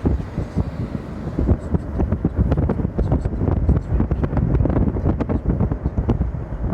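Wind buffeting the microphone: a continuous low rumble with irregular crackling gusts.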